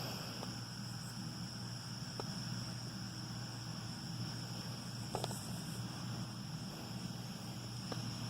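John Deere 4440's six-cylinder diesel, pulling a New Holland Roll-Belt 450 round baler, running steadily at a distance as a low drone. Insects chirr in a steady high tone over it, with a few faint clicks.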